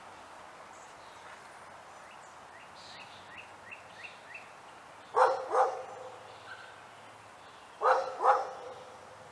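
A dog barks twice in quick succession about five seconds in, and twice more near the end. Before the barks, a bird chirps several times.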